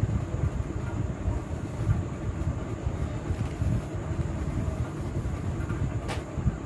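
Steady low rumbling background noise with a faint high steady whine, and a single click about six seconds in.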